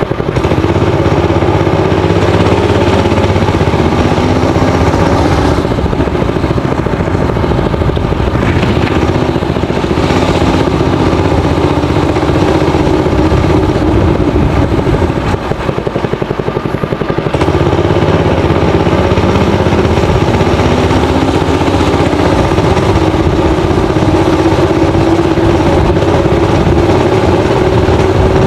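Honda GX160 single-cylinder four-stroke engine on a homemade minibike, running throughout with its pitch rising and falling several times as the throttle is opened and eased off.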